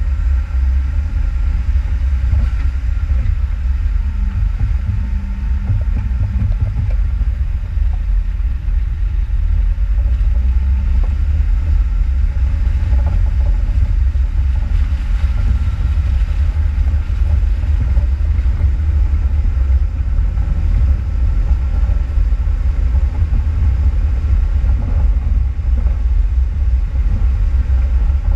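Off-road vehicle driving: a loud, steady low rumble of engine and running gear, with a faint steady tone above it.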